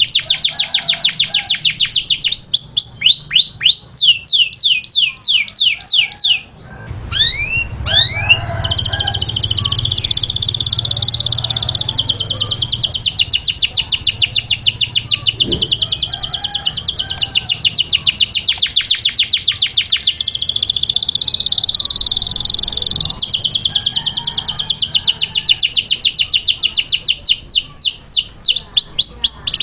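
Canary singing a long song of very fast trilled rolls. Series of rising, swept notes come a few seconds in and again near the end, with a short break about six seconds in.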